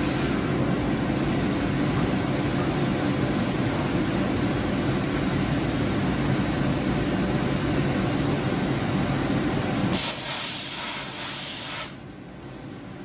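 Machine tool running steadily during a cut. About ten seconds in comes a sharp two-second hiss, like an air or coolant blast, which stops suddenly, and the machine goes much quieter.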